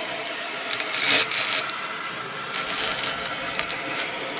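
A tape measure and a marker dragged along a sheet of rigid foam insulation board, scratchy rubbing in two strokes about a second and about three seconds in, marking a cut line.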